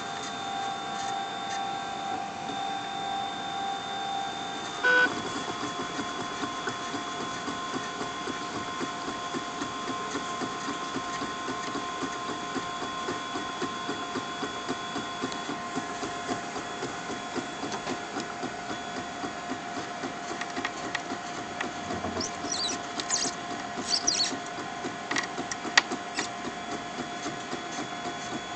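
Ultimaker 3D printer running a print: its stepper motors whine in several steady tones that jump to new pitches as the print head's moves change, with a short loud blip about five seconds in. Light clicks and a few brief chirps come near the end.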